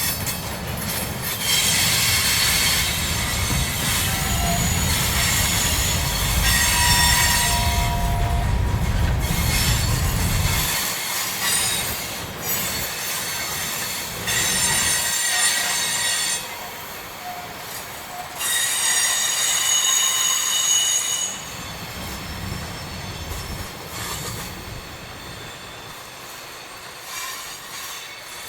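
Freight cars rolling through a curve, their wheels squealing on the rails in repeated high-pitched bursts over the low rumble of the train. The rumble drops away about a third of the way in, and the squeals grow fainter near the end.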